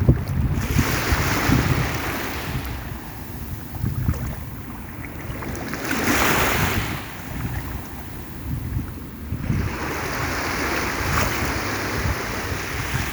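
Sea waves washing in, three surges of surf about four seconds apart, the middle one the loudest, with wind buffeting the microphone throughout.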